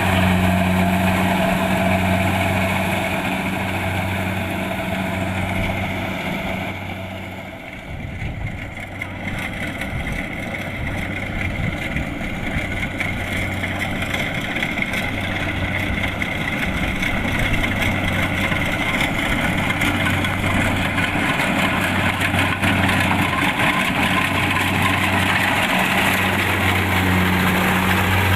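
Kubota DC-70 Plus combine harvester's diesel engine running steadily, with a low hum that pulses about once a second. The sound dips briefly about seven seconds in, then builds back up.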